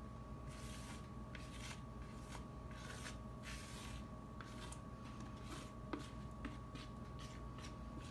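Wooden spatula scraping thick chocolate cake batter out of a mixing bowl into a bundt pan: a run of soft, irregular scraping strokes, with a light tap about six seconds in, over a faint steady hum.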